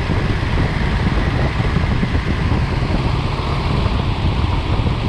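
Car engine idling steadily while its ignition timing is checked with a timing light; the timing sits at about 10 degrees before top dead center, dead on spec.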